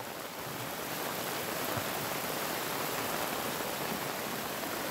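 Muddy flash-flood water rushing across a dirt road, with rain falling: a steady, even rush that grows a little louder over the first second. The runoff is spilling over the road because the drainage is blocked.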